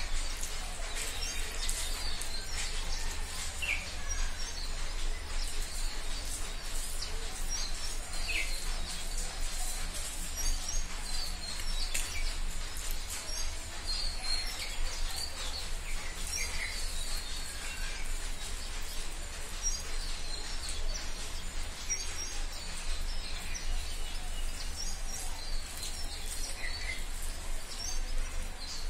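Small birds chirping on and off, with a few short sliding calls among the chirps. Soft clicks of fingers mixing rice on a steel plate and a steady low hum sit underneath.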